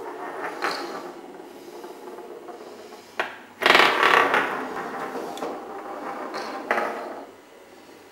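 Small tippe tops spinning on a wooden tabletop with a rattling scrape. A little under four seconds in, a second top is twirled onto the table with a sudden loud clatter, and its rattle fades over the next few seconds. The sound dies down near the end.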